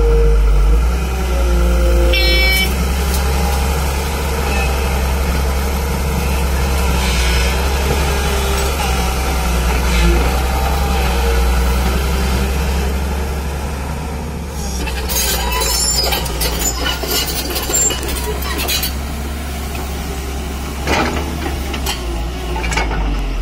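JCB crawler excavator's diesel engine running steadily under load as it digs and loads soil, a loud low drone throughout. A brief high tone sounds about two seconds in, and past the middle a run of clattering knocks, typical of soil and stones dropping from the bucket.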